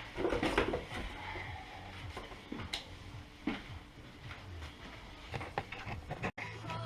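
Scattered light clicks and knocks of tools and bicycle parts being handled as a bicycle is taken apart, with the loudest knock about half a second in. The sound cuts out suddenly near the end.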